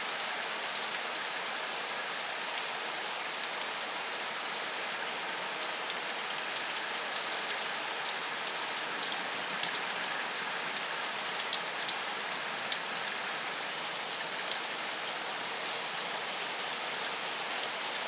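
Heavy rain falling steadily, a dense hiss with many small sharp drop hits spattering close by.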